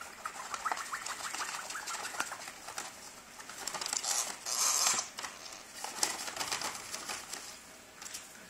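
Brown paper bag crinkling and rustling as a blue-streaked lory scrabbles about inside it, a run of scratchy crackles with a louder burst of rustling about four to five seconds in.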